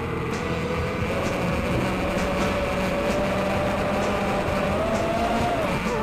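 Eachine Tyro 129 FPV racing quad's brushless motors whining in flight, the pitch drifting with throttle, climbing slowly and then dropping sharply near the end, over a steady rush of air.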